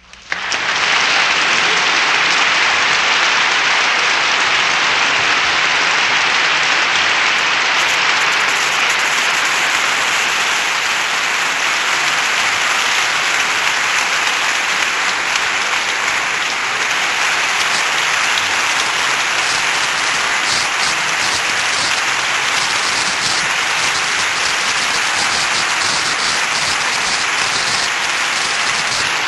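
Dense, steady applause from a crowd, starting suddenly and keeping an even level throughout.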